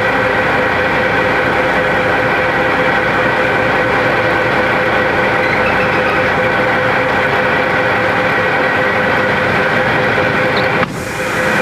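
Truck engine idling steadily, heard from inside the cab, with a brief dip in the sound about eleven seconds in.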